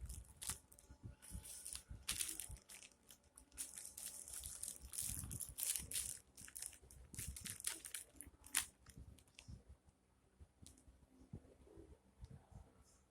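Plastic wrapping crinkling and rustling in quick crackles as it is handled, dying down about ten seconds in.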